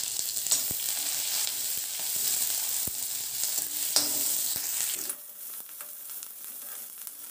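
Chopped onion sizzling in hot mustard oil in a kadhai, stirred with a perforated steel spatula that scrapes and taps against the pan in sharp clicks. The sizzle falls to a quieter hiss about five seconds in.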